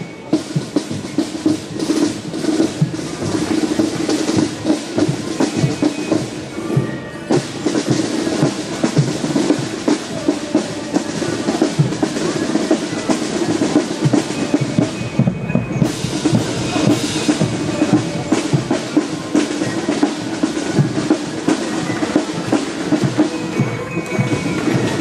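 Marching parade drums, snare and bass drums, playing a steady, fast beat with rolls.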